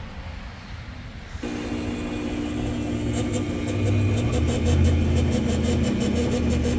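Electric motor of a boat's power cabin door running, starting about a second and a half in: a steady hum with a low rumble that grows louder, and a fast fine ticking from about halfway on.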